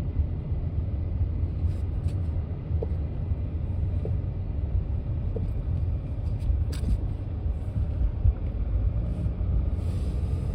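Car driving, a steady low rumble of engine and road noise with a few faint ticks.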